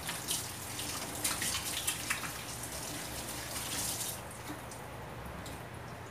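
Kitchen tap running into a sink as hands are rinsed under it, with splashing. The water stops about four seconds in.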